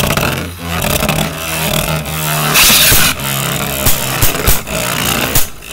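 Two Beyblade Burst spinning tops, Revive Phoenix and Shelter Regulus, whirring and clashing in a plastic stadium. A steady low hum runs under repeated sharp clacks as the tops hit each other and the stadium walls. A louder scraping clash comes about two and a half seconds in.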